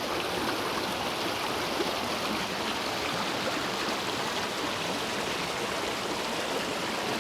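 Creek water running steadily down a small slide over rocks, an even rushing hiss.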